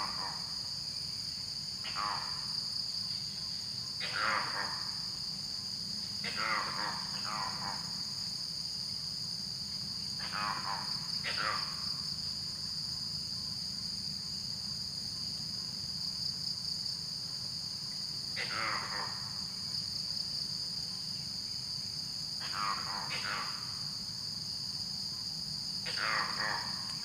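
Steady high insect chorus, like crickets, with an unidentified creature repeatedly giving short calls that slide downward in pitch, some single and some in quick pairs, every few seconds.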